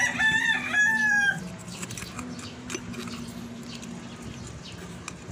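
A rooster crows once at the start, a pitched call in about three joined segments lasting roughly a second and a half. After it come a low steady hum and a few faint clicks.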